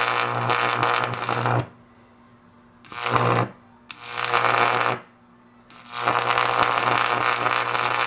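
High-voltage arc from a microwave oven transformer buzzing with a harsh low hum and hiss, breaking off and striking again: a long stretch at first, two short ones a few seconds in, then steady buzzing from about six seconds in.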